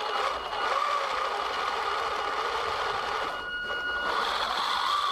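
Electric 775 DC motors and 3D-printed gearboxes on an RC tank whining at a steady pitch as the tracks churn in deep snow. The whine cuts out briefly a little past halfway, then starts again.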